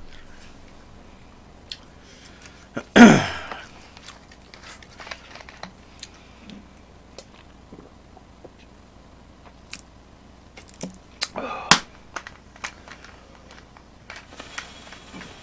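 Small eating and drinking noises in a quiet room: scattered clicks of utensils and dishes and chewing, with one short loud burst about three seconds in and another cluster of clicks around eleven seconds.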